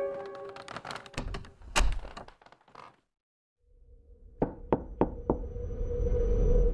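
A string of sharp knocks and thuds, broken by a brief dead silence about halfway through; after it a faint steady tone sits under further knocks, about three a second.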